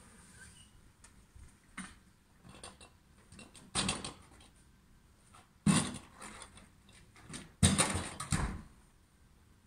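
Sharp bangs and clatters from refuse collection at a stopped garbage truck. The three loudest come about four seconds in, near six seconds and around eight seconds, with a few faint knocks between.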